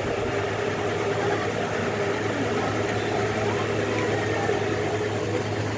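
Steady low mechanical hum over an even background noise, with no clear events.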